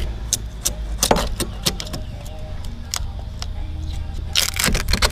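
Irregular clicks, knocks and light metallic clinks of hand tools digging out rotten boat timber, with a cluster of sharper knocks near the end and a steady low rumble underneath.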